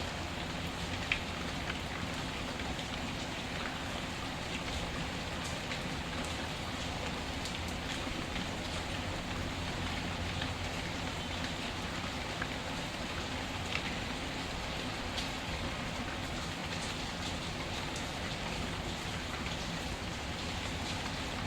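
Steady rain falling, with a few scattered sharp crackles from a wood fire, the clearest about a second in.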